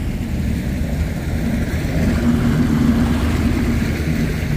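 A 90-horsepower outboard motor runs steadily under way, driving a bass boat across the lake, with water rushing along the hull.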